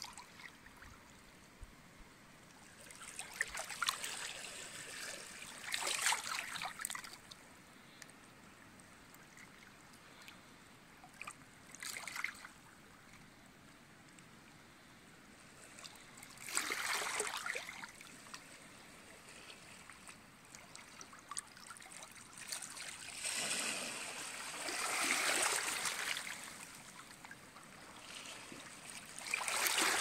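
Small lake waves lapping and trickling over stones in shallow water at a rocky shore. Irregular swells of splashing come every few seconds, each lasting a second or two, over a soft steady wash.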